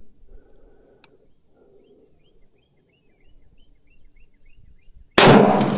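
A single shot from a .223 AR-style rifle, a sudden loud crack about five seconds in that rings out and dies away slowly, after a few near-quiet seconds.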